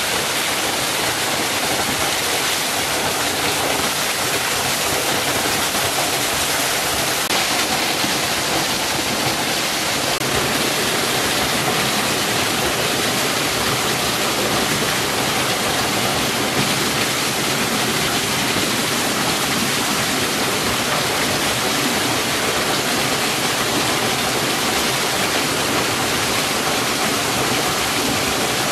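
Small waterfall splashing down onto rocks, a steady unbroken rush of falling water.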